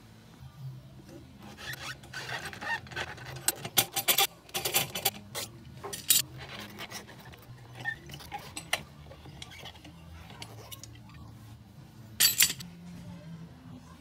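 Steel C-clamps being unscrewed and pulled off a scooter tyre: irregular scraping of the screw threads, metal clinks and rubbing, with one louder clatter about twelve seconds in.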